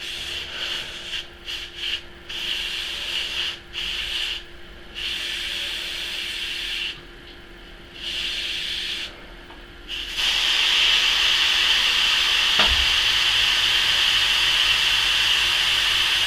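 Compressed air hissing out of a Bambi compressor's reserve tank, first in short spurts and then as a steady, louder hiss, bled off to drop the tank pressure so the compressor cuts in. About three-quarters of the way through there is a thump and a low steady hum, the sound of the compressor motor starting.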